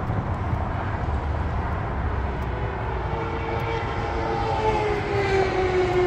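Steady rumble of interstate highway traffic. About halfway in, a droning engine tone joins it and slowly falls in pitch.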